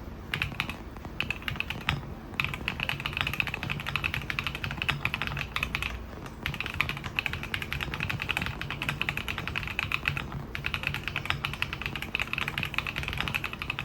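Typing on a stock, unmodified MonsGeek M3 full-aluminium gasket-mount mechanical keyboard with Haimu Mint Lemon switches and dye-sublimated PBT keycaps: fast, continuous keystrokes, with brief pauses about two, six and ten seconds in.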